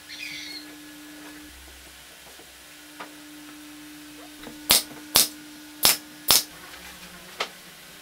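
Four sharp wooden knocks about half a second apart, pallet-wood pieces striking a wooden workbench as the feeder is assembled, over a faint steady hum.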